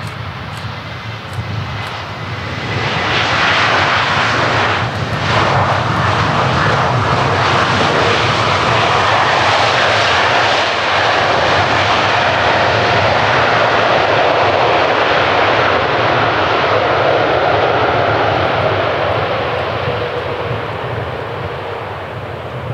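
Airbus A320neo with CFM LEAP-1A jet engines rolling out just after touchdown: a loud jet rush that swells about three seconds in, holds for some fifteen seconds, and dies away near the end, the pattern of reverse thrust slowing the airliner on the runway.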